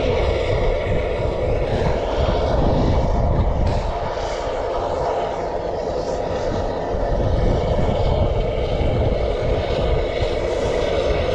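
Steady droning rumble of the Mount Washington Cog Railway locomotive working up the mountain, heard over wind buffeting the microphone.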